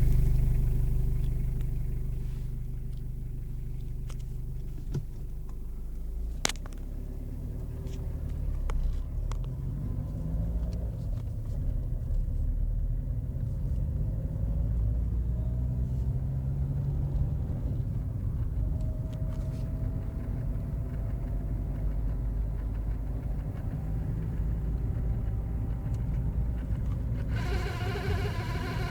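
Renault Clio running with a steady deep rumble, plus a faint whine that rises slowly in pitch. This is the strange noise the owner traced to the speedometer cable, which only made it while the car was cold.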